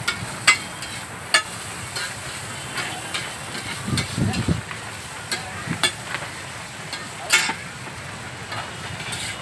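Metal spatula scraping and clanking on a large iron griddle as noodles are stir-fried, with irregular sharp clinks over a steady frying sizzle.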